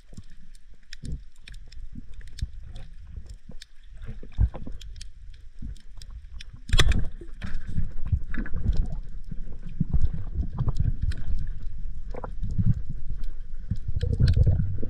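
Shallow surf heard through an underwater camera: a low rumbling of water surge with many small scattered clicks. A sharp knock comes about seven seconds in, and the rumble is louder after it.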